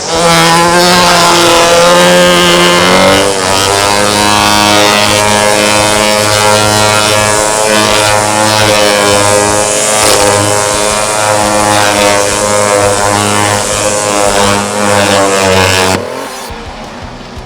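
Two-handed weed whacker's engine running at high revs as its line is driven against a tensioned fabric enclosure wall, a steady loud drone that shifts pitch about three seconds in and stops abruptly near the end.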